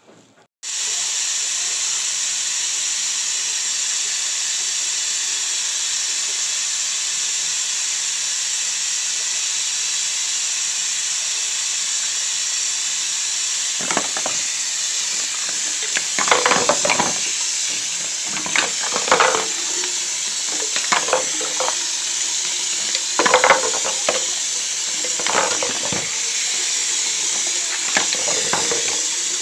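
Kitchen tap turned on, water running steadily into the sink, with baby bottles and their parts knocking and clattering in the sink from about halfway through as they are washed.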